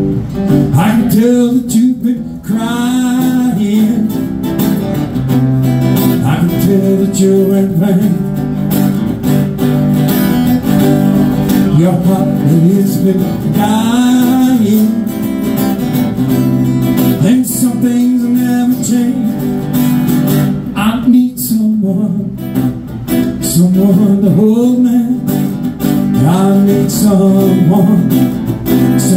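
A PRS acoustic guitar strummed and picked in a blues song, with the player's singing voice coming in at times.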